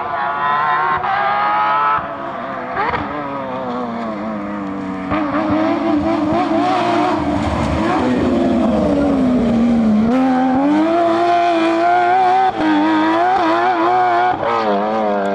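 Rally car engine at full throttle, its pitch climbing, breaking off at gear changes and dropping under braking, then climbing again.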